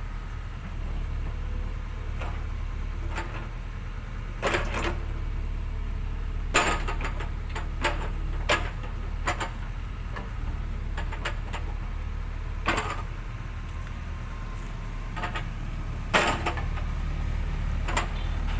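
Sany mini excavator's diesel engine running steadily as the boom and bucket move, with several sharp knocks scattered through.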